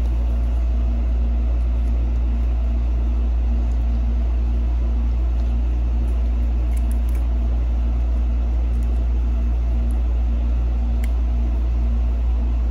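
Steady low machine hum, even throughout, with a faint higher tone running with it and a few faint clicks.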